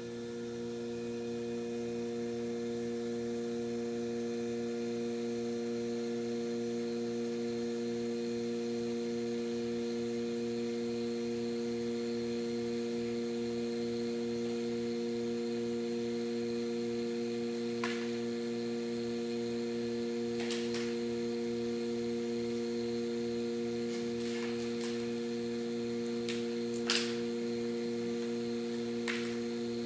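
Electric vacuum pump running with a steady humming drone as it pumps the air out of a glass coin-and-feather tube, coming up to speed in the first second or two. A few light clicks and taps come in the second half, the loudest near the end.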